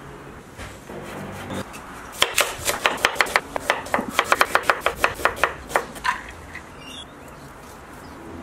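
Chef's knife slicing an onion on a wooden cutting board: a quick run of sharp knife strikes on the board, about five a second, starting about two seconds in and stopping about four seconds later.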